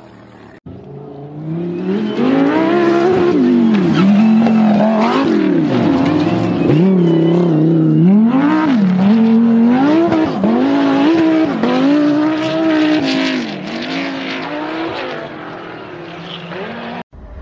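Rally car engine driven hard: revs climb and fall again and again as it accelerates, shifts and lifts. It is loud throughout after a brief, quieter engine hum at the very start.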